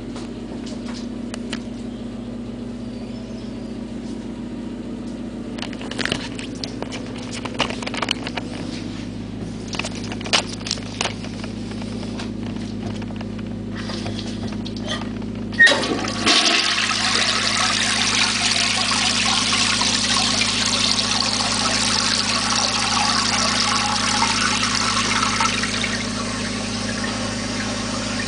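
An old Universal-Rundle toilet being flushed. After a stretch of low hum and scattered handling clicks, a sharp click of the handle about halfway in is followed by loud, steady rushing water that eases a little near the end.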